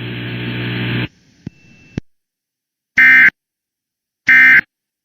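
Emergency Alert System end-of-message data bursts: two short, loud, harsh buzzing bursts of SAME data tones about a second and a half apart, the code that closes the flash flood warning. Before them a steady hum from the broadcast cuts off about a second in, followed by a couple of faint clicks.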